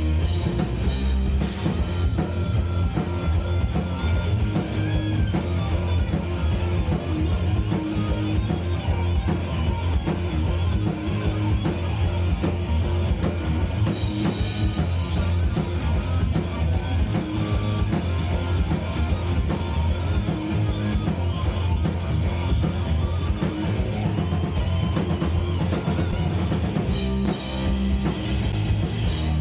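Live rock band playing: electric guitars, bass guitar and a drum kit.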